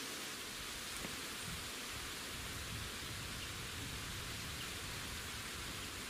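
Steady outdoor background hiss, with a low rumble coming in from about a second and a half in.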